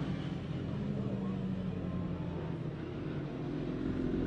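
Superbike racing motorcycle engines running at a distance, a steady drone that grows louder near the end as a bike comes closer.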